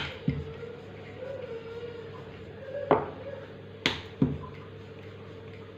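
A wooden rolling pin rolling out dough on a marble countertop, knocking against the stone about five times, in two clusters: at the start and around three to four seconds in. A steady hum runs underneath.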